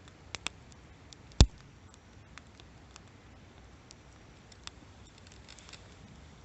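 Wood campfire crackling: scattered small snaps and ticks, with one loud pop about a second and a half in.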